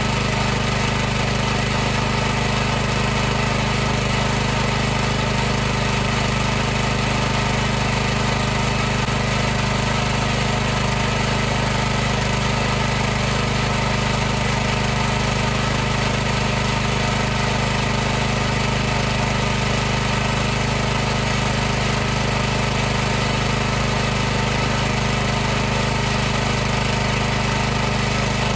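High-pressure washer running steadily: a constant motor hum under an even hiss.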